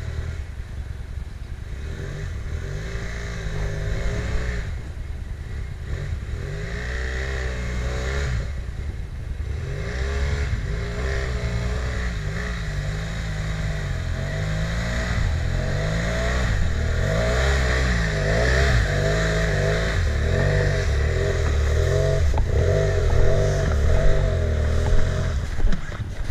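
Motorcycle engine running and repeatedly revving up and down as the bike is ridden slowly through snow.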